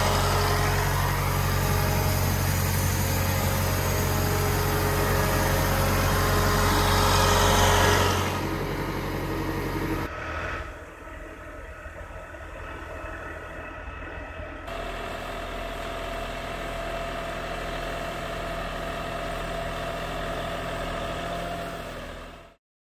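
Tractor engine running steadily under a broad hiss from the rotating cleaning brush and water spray scrubbing solar panels. The sound drops quieter about ten seconds in, picks up again a few seconds later, and cuts off just before the end.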